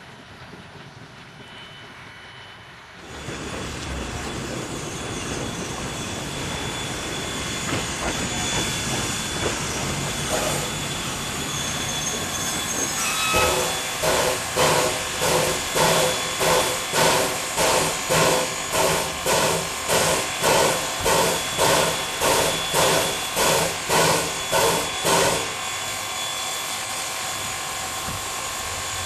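Steam locomotive letting off a steady hiss of steam. About midway it starts chuffing in an even beat of roughly one and a half exhaust beats a second. The chuffing breaks off near the end, then picks up again.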